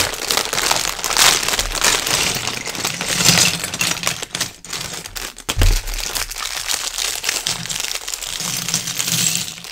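Plastic Lego parts bag being crinkled and torn open, a dense rustling crackle with many small clicks. A dull knock a little past halfway.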